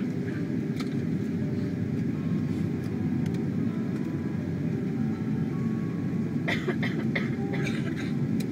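Steady low roar of a Boeing 747's jet engines and rushing airflow, heard from inside the passenger cabin as the airliner descends on approach to land.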